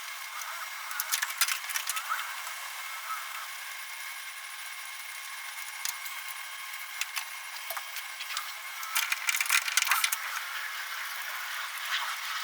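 Metal hand tools clicking and clattering, an 8mm socket wrench with an extension working the bolts of a trim lip, with clusters of sharp clicks about a second in and again near ten seconds.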